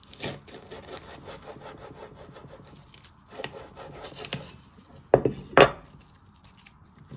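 A chef's knife sawing lengthwise through a spring onion on a wooden chopping board: scratchy, rasping strokes of the blade through the stalk and against the wood. Just past five seconds there are two sharp knocks on the board, the loudest sounds.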